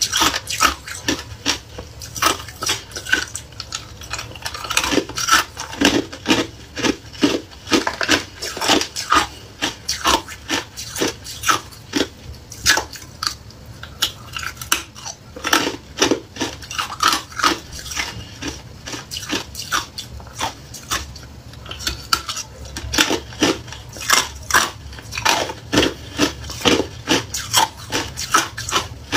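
Hard clear ice being bitten and crunched between the teeth: a run of sharp cracks and crunches, several a second, with short pauses.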